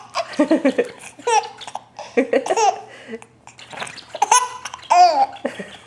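A baby laughing in short, repeated bursts mixed with babbling, with a high-pitched squeal a little past four seconds in.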